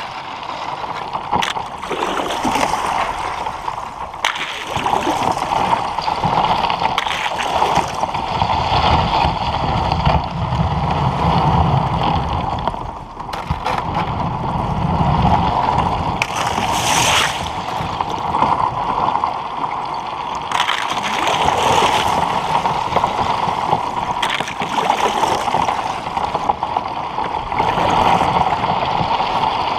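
Plastic kayak hull pushing through thin, broken lake ice: a continuous crackling and clinking of ice shards breaking and scraping along the hull, with water sloshing.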